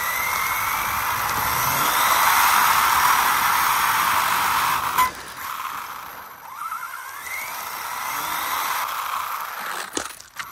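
3D-printed RC car's motor and drivetrain whining as it speeds over asphalt, the pitch rising again as it accelerates about seven seconds in. A sharp knock near the end as the car tips onto its side.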